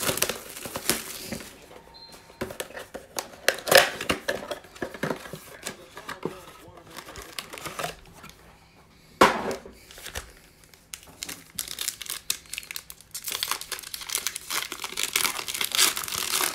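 Foil wrappers of Prizm football card packs crinkling as the packs are handled and pulled from a blaster box, with sharp crinkles about 4 and 9 seconds in. Near the end there is a dense run of crinkling and tearing as a pack is ripped open.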